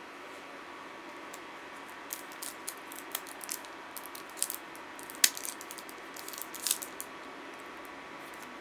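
Packaging of a snack being handled and opened: a run of sharp crinkles and crackles over several seconds, the loudest about five seconds in, over a steady low hiss.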